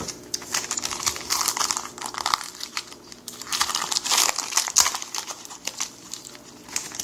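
A trading card pack's wrapper crackling and crinkling as it is handled and opened, in two bouts of rapid crackling.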